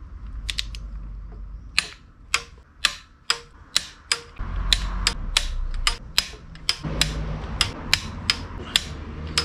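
Torque wrench ratcheting on the flywheel bolts of a VR6 engine: a steady run of sharp clicks, about two to three a second, as the bolts are run down toward 44 foot-pounds.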